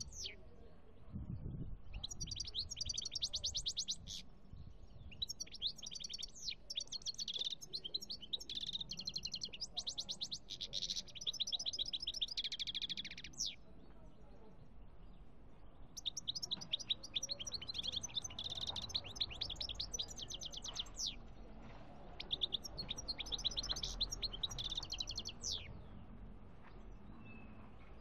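European goldfinch singing: several long phrases of rapid, high twittering, broken by pauses of a second or two.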